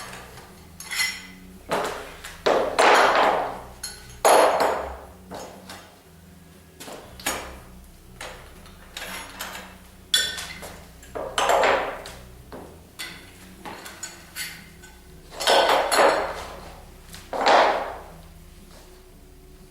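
Metal parts of a paintless dent repair stand being taken apart by hand: a series of metal knocks and clanks with short ringing, several louder ones spread through, with small clicks and taps between.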